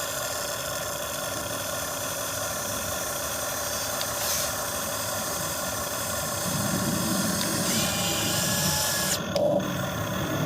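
Radio-controlled model excavator's electric motors and hydraulic pump whining steadily as it works, with a lower rumble added from about six and a half to nine seconds in.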